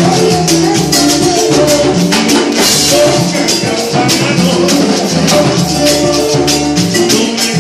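Salsa music playing without vocals, with a güiro scraped close by in time with the beat.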